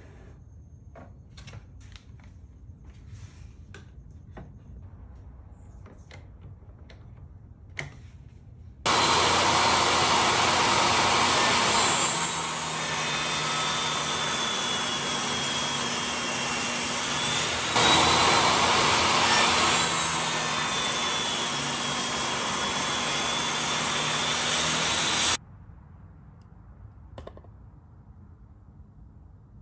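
DeWalt jobsite table saw switched on and running for about sixteen seconds as a board clamped to a straight-edge sled is pushed through the blade to joint its edge, louder in two stretches, then cutting off suddenly. Before it starts there are light clicks and knocks of wood and clamps being handled.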